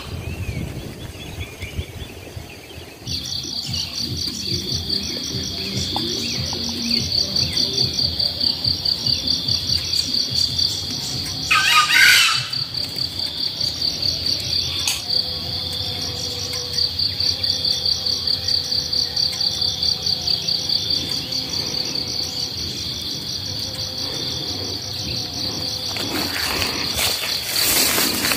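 An insect trilling steadily in jungle undergrowth, a fast even run of high pulses that starts about three seconds in and keeps going. About halfway through there is a brief louder burst over it.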